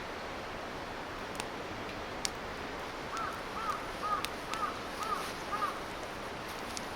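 A crow cawing six times in a quick series, about two caws a second, over a steady background hiss, with a few sharp clicks.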